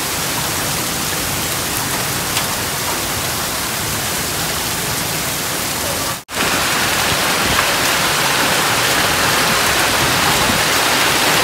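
Heavy rain mixed with hail pouring down onto paving and plants: a dense, steady hiss. It cuts out for a moment about six seconds in and comes back slightly louder.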